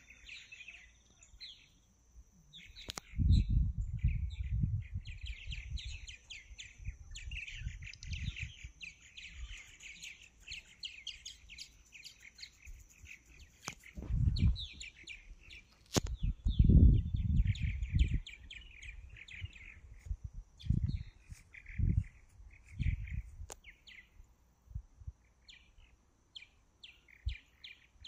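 Purple martins twittering in flight: many rapid chirps and warbling calls, on and off throughout. Under them a steady high tone, and several bursts of low rumble on the microphone, the loudest about three seconds in and again just past the middle.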